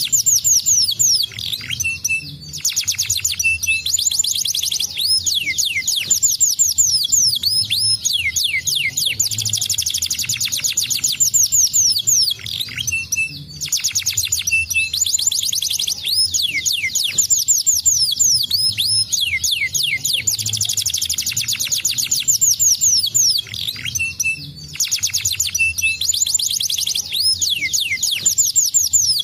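Domestic canary in full, non-stop song: long rapid trills of quick falling whistled notes, one phrase after another with only short breaks between them.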